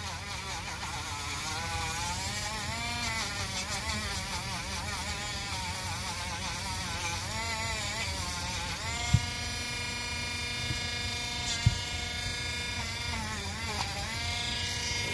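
Dremel rotary tool grinding old glue off the bead of a rubber RC car tire. Its motor whine wavers up and down in pitch as it bites into the rubber, then runs steadier from about nine seconds in. Two sharp clicks come about nine and eleven and a half seconds in.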